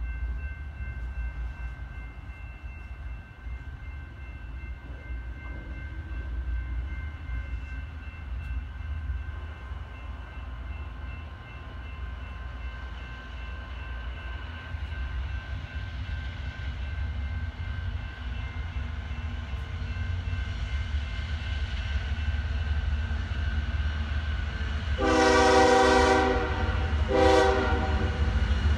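BNSF diesel freight locomotives approaching with a low rumble that grows louder. Their air horn then sounds one long blast about 25 seconds in, followed by a short blast about two seconds later.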